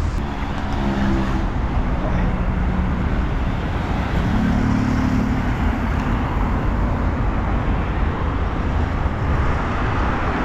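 Busy road traffic close by: a steady wash of engine and tyre noise, with the hum of vehicle engines passing near about a second in and again around four to five seconds in.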